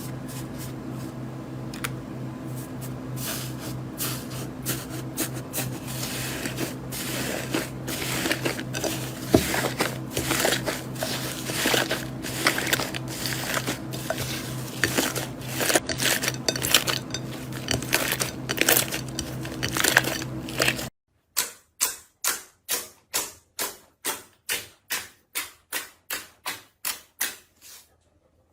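Slime being worked by hand, with dense crackling and popping clicks over a steady low hum. After a sudden cut about two-thirds of the way through, rhythmic squishing presses come about two and a half times a second.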